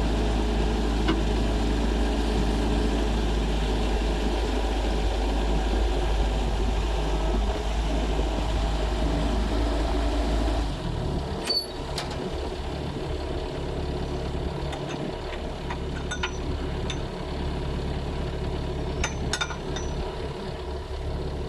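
Bobcat skid steer engine running steadily; about halfway through its low hum changes and it runs a little quieter, as if throttled down. After that come several sharp metallic clinks.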